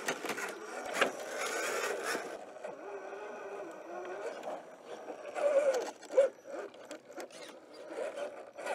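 RC4WD Trail Finder 2 scale rock crawler climbing sandstone: its tyres and chassis scrape and rub on the rock in irregular bursts, with faint voices in the background.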